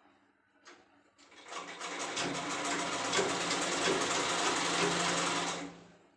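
A black domestic sewing machine stitching through fabric in one continuous run of rapid stitches, starting a little over a second in and stopping shortly before the end. A light click comes just before the stitching.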